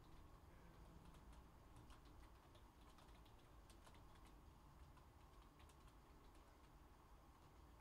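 Faint computer keyboard typing: soft key clicks at an irregular pace over a low steady hum.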